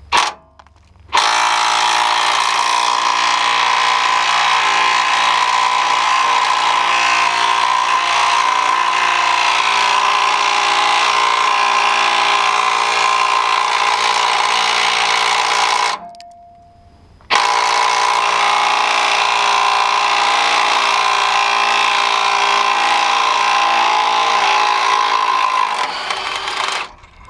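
Ingersoll Rand W5152 20V brushless cordless impact wrench hammering on rusted frame bolts, a steady rattling buzz with a whine running through it. It runs in two long bursts, about fourteen and nine seconds, with a short pause between them.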